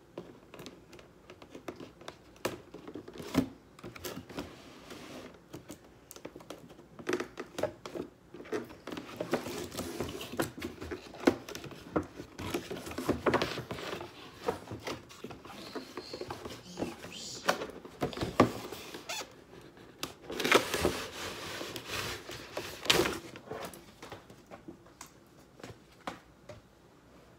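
Cardboard toy box and its plastic packaging being handled and opened: irregular rustling, scraping and clicking, with a few louder scrapes past the middle.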